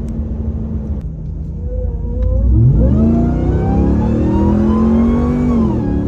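2022 Ram TRX's supercharged 6.2-litre Hemi V8 breathing through a Ripatuned 5-inch intake: running steadily, then accelerating hard from about two and a half seconds in, the engine note and supercharger whine rising together, and easing off just before the end.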